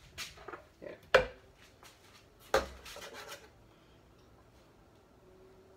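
Kitchen utensils knocking and scraping against kitchenware, with two louder sharp knocks about a second and a half apart.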